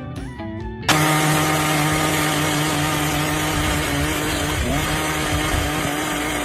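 A power tool running at a steady high speed. It starts abruptly about a second in, and its pitch dips briefly about two-thirds of the way through.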